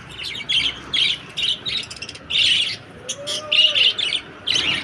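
Small pet parrots calling in a quick run of short, high-pitched chirps and squawks, about two or three a second, with one longer squawk about halfway through.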